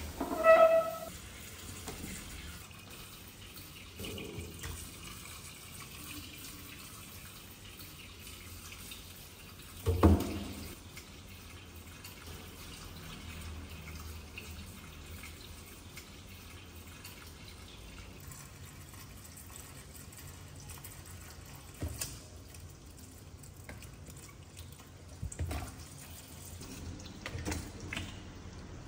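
Kitchen mixer tap running a steady stream of water into a stainless steel sink. A short high-pitched call comes near the start, and a heavy thump about ten seconds in, with a few knocks later.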